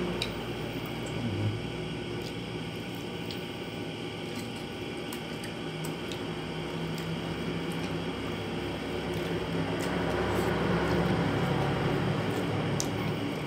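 Close-up wet chewing and small mouth clicks of a person eating soft food, rice and grilled eggplant, by hand, over a steady low hum.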